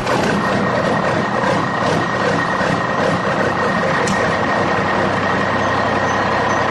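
Steady engine-like running noise with a constant high whine, starting abruptly and holding unchanged.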